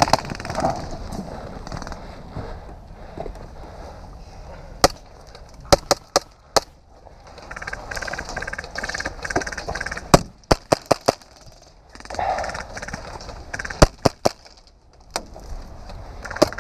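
Airsoft electric gun shots: sharp single cracks in short quick groups, one about a third of the way in, a cluster of four soon after, four more past the middle and two near the end. Faint distant voices can be heard between them.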